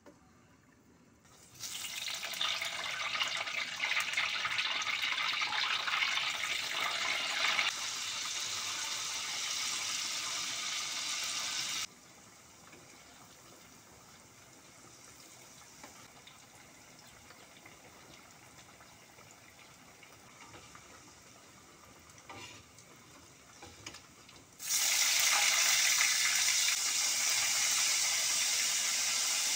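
Hot oil sizzling in a wok as food fries. It is loud and hissing for about ten seconds, drops to a soft hiss, then turns loud again near the end.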